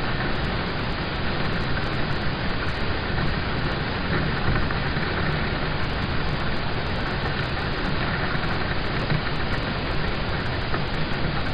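Steady rain falling on a car's roof and windows, heard from inside the cabin as an even hiss with a dense patter.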